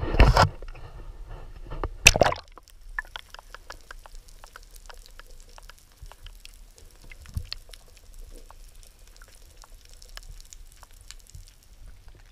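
Splashing as a camera is plunged into the sea, loudest at the start and again about two seconds in, then the muffled underwater sound of the sea with a steady scatter of faint clicks and crackles.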